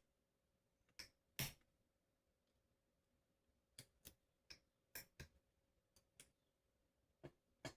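Faint, irregular clicks of a hook pick and tension wrench working the pins inside a Federal 900 padlock, about a dozen in all, the loudest about one and a half seconds in.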